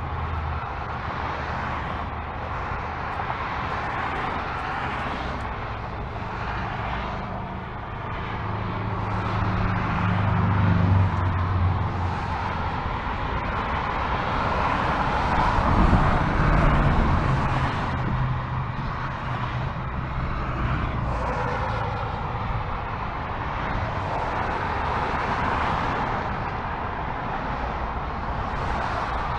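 Steady freeway traffic heard from above: a continuous hiss of tyres on concrete with cars passing in a constant stream. It swells louder about ten seconds in and again about sixteen seconds in, with a low engine drone as heavier vehicles pass.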